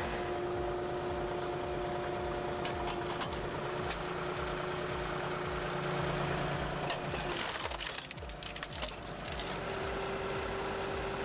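A wood-processing machine running steadily, with wood cracking and splintering about seven seconds in.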